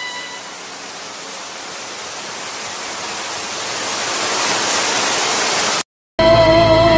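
A rushing hiss of noise in the music track, swelling louder and brighter for about five seconds, then cutting off abruptly. After a brief silence, music starts again with a wavering held tone: one song ends and the next begins.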